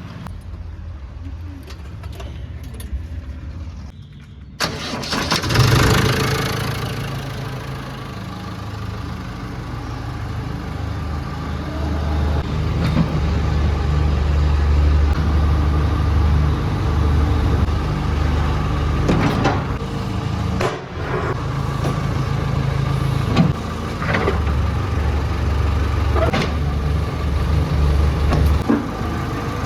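Heavy diesel machinery engine: it runs quietly at first, then comes in loud and sudden about four and a half seconds in and keeps running with a steady low drone that rises and eases under load. Several sharp knocks sound over it.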